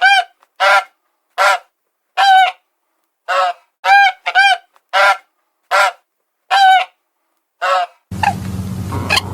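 Loud honking calls of a large bird, about ten short honks spaced with silence between them, one of them doubled. Near the end a noisier recording takes over, with quicker honks over a low rumble.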